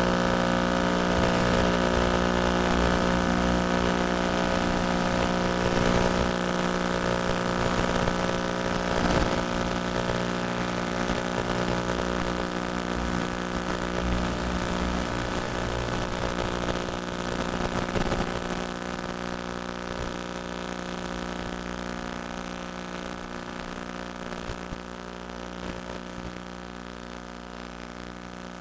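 FPV multirotor drone's electric motors and propellers giving a steady, even-pitched hum that slowly grows quieter.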